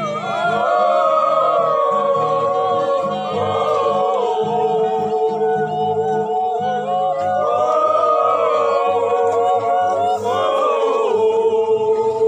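A group of voices sings a traditional Kimyal welcome chant without instruments. Several voices overlap, holding long notes that slide and break in pitch.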